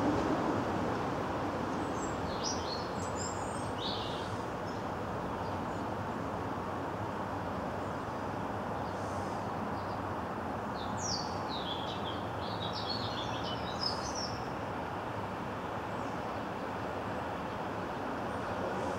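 Steady hum of street traffic, a little louder at the very start as a car moves off, with small birds chirping in short clusters a few seconds in and again around the middle.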